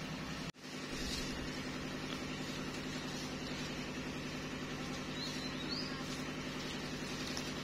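A steady low mechanical hum that cuts out briefly about half a second in, with a couple of faint high chirps around five seconds in.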